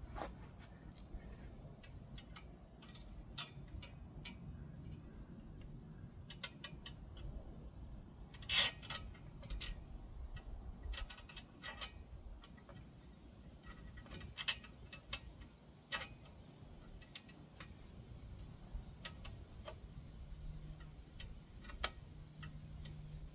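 Ratchet wrench clicking in short, irregular runs with scattered single clicks and knocks, as a stubborn bolt on a side-by-side's front bumper is worked in and snugged down.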